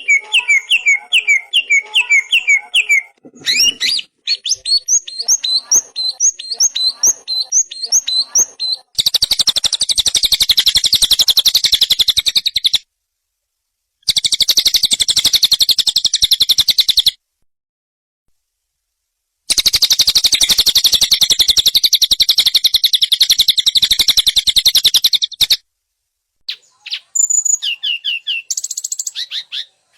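Recorded songbird song of the kind used as masteran for training caged birds. It starts with quick series of sharp repeated chirps, then moves to long stretches of fast, continuous high-pitched trilling. Each stretch cuts off abruptly into dead silence, as in an edited recording.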